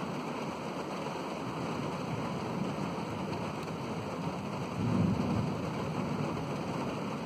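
Steady heavy rain during a thunderstorm, with a brief low rumble of thunder swelling up about five seconds in.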